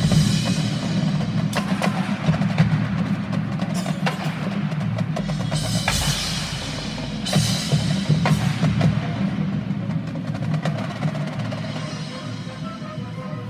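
High school marching band playing a percussion-driven passage: snare and bass drums hitting sharp accents and rolls over a sustained low chord. Pitched melodic lines come in near the end. The sound echoes around a large domed stadium.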